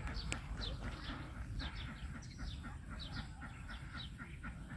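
Birds chirping: many short, quickly falling notes in rapid succession, over a low rumble.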